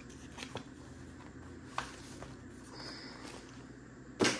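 Quiet handling sounds on a tabletop as cash and envelopes are picked up: a few soft clicks and taps, then one sharper knock a little after four seconds.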